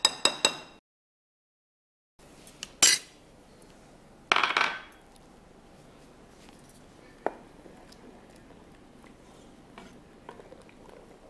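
A metal spoon clinks against a glass mixing bowl several times in quick succession, each clink ringing briefly. After a short gap of dead silence come a single sharp clink, a brief scrape, and a few scattered small clicks of kitchen utensils.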